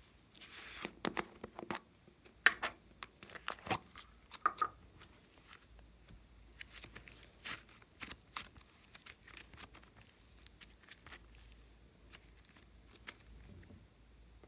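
Soft modelling clay being pushed out of its plastic cup and pulled and kneaded by hand, giving a run of small crackling, tearing clicks. They come thickest in the first few seconds, then thin out to scattered clicks.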